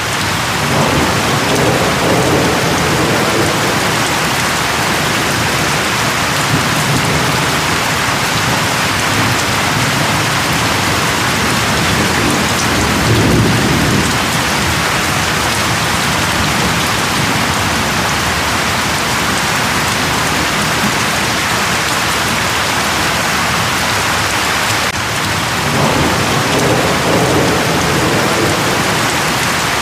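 Steady heavy rain falling, with low rumbles of thunder rolling in three times: near the start, at about 13 seconds, and again near the end.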